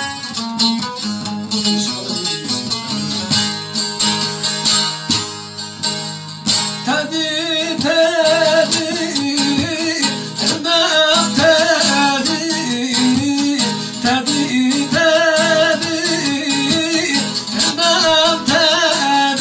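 Two saz (bağlama, long-necked Turkish lutes) played together, fast plucked notes. About seven seconds in, a man starts singing a Turkish folk song (türkü) over them, with a wavering, ornamented voice.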